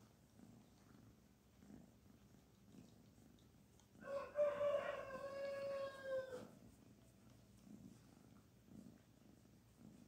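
Kitten purring softly while being stroked. About four seconds in, a loud drawn-out call cuts across it for about two and a half seconds, held on one pitch and dropping slightly at the end.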